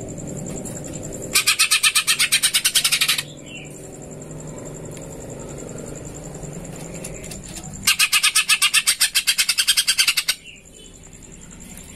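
Greater green leafbird (cucak ijo) calling in two loud, rapid trilled bursts of about nine notes a second. The first starts about a second in and lasts nearly two seconds; the second comes in the latter half and lasts about two and a half seconds.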